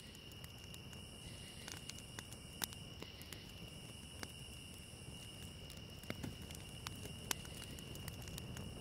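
Ambient sound bed of crickets chirring steadily, with a crackling fire giving irregular sharp pops and snaps, slowly growing a little louder.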